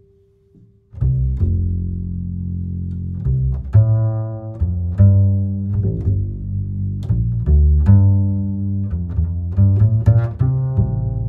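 Background music of low string instruments, bowed and plucked, coming in about a second in after a moment of near quiet.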